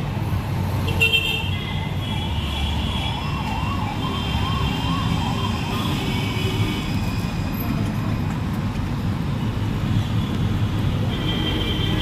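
Steady road-traffic rumble of engines. From about one to six seconds in, a siren-like electronic tone warbles up and down about three times a second.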